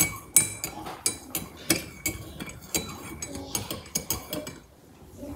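Metal spoon clinking against a ceramic mug: a quick, uneven run of ringing clinks that stops about four and a half seconds in.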